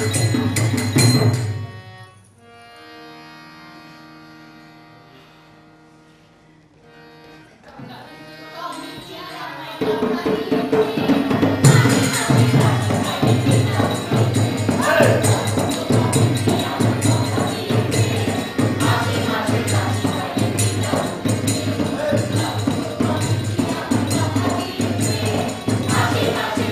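Live folk-theatre accompaniment on barrel drum and harmonium: drumming that breaks off about two seconds in to a soft, sustained harmonium chord, then drumming and singing start up again about ten seconds in with a steady beat.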